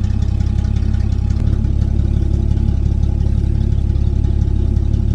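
An old Chevy pickup truck's engine idling steadily.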